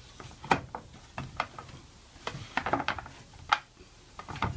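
Irregular light wooden knocks and clicks as the loose, unglued sides of a small wooden box are pushed together and shifted on a workbench. There are two sharper knocks, about half a second in and about three and a half seconds in, with a quick run of clicks in between.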